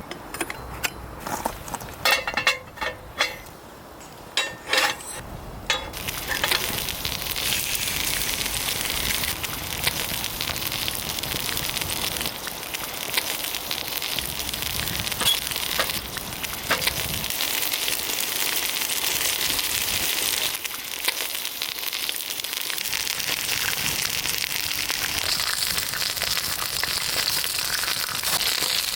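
Wood fire crackling and hissing steadily, after a few sharp snaps and knocks in the first six seconds.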